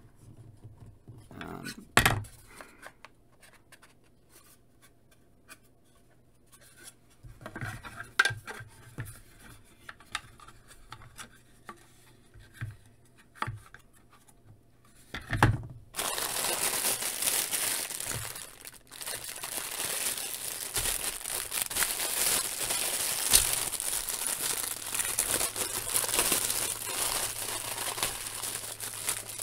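Plastic diorama panels handled and fitted together, with a few sharp clicks, the loudest about two seconds in. About halfway through, a clear plastic bag starts crinkling steadily as it is handled.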